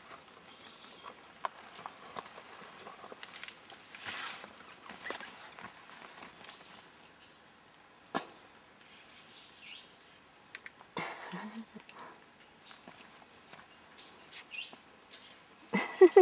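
Continuous high-pitched insect chirring, with scattered rustles, taps and clicks from nearby movement. A few louder knocks come near the end.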